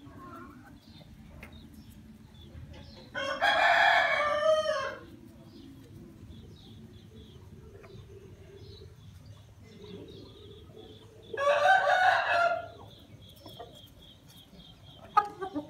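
Aseel rooster crowing twice, each crow lasting about a second and a half and several seconds apart, with faint hen clucking in between. A sharp click comes near the end.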